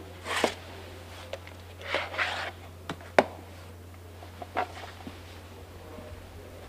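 Handling noises from a plastic VHS cassette and its sleeve as they are lifted from a shelf: a few short rustles and sharp clicks over a steady low hum.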